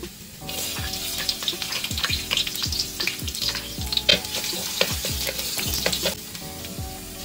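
Minced garlic and ginger sizzling in a hot wok while a wooden spoon stirs and scrapes them around the pan. The sizzle comes up about half a second in and eases off near the end.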